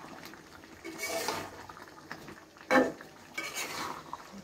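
Metal spatula scraping and knocking against a pan while a wet mix of chicken, carrots and tomatoes is stirred. A few scraping strokes, with one sharper, louder knock nearly three seconds in.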